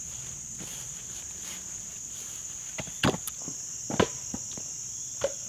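Split firewood logs knocking as they are set down on a woodpile: a few sharp wooden knocks in the second half. A steady high-pitched insect chorus runs underneath.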